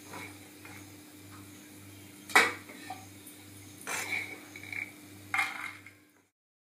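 A spoon scraping and knocking against a non-stick wok while a sprouted black gram salad is stirred, with one sharp knock about two and a half seconds in and scraping clatters near four and five and a half seconds, over a low steady hum. The sound stops abruptly shortly before the end.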